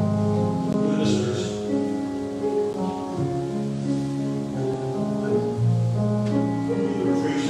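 Live worship band playing a slow song on acoustic guitars, with long held notes moving through a melody.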